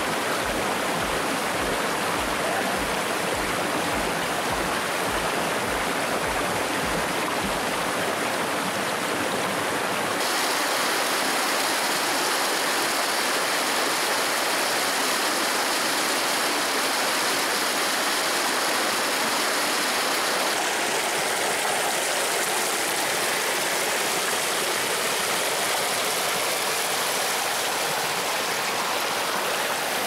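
Stream water rushing and splashing over rocks in small cascades, a steady rush that changes in tone about ten and twenty seconds in.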